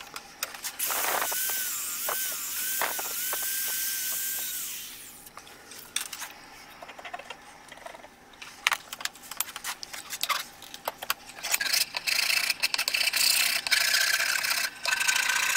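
Shaping the end of a padauk-and-oak hammer handle. For about five seconds an electric finger file runs on the wood, a steady hiss with a wavering whine. After some quieter scraping and knocks, a hand file rasps across the wood in strokes near the end.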